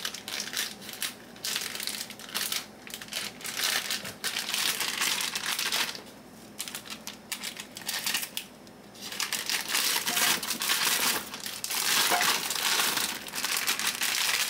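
Plastic bag crinkling and rustling in irregular bursts while red potatoes are handled out of it, easing off for a few seconds in the middle before picking up again.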